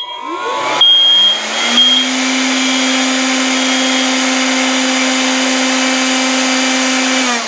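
An electric motor spins up over about two seconds, runs at a steady hum with a rush of air, then winds down near the end. A smoke alarm's high beeps fade out during the first two seconds.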